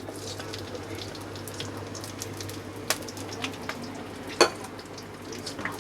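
Chopped onions sizzling in hot oil in a kadai, a steady frying hiss with a few sharp clicks, the clearest about three seconds and four and a half seconds in.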